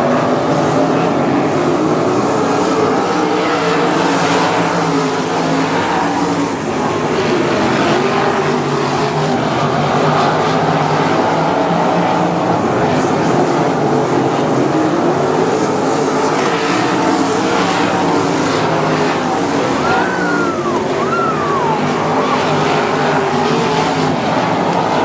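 A field of 305 winged sprint cars racing on a dirt oval. Several V8 engines run at high revs together, in a loud, steady mass of engine noise that rises and falls as the cars pass.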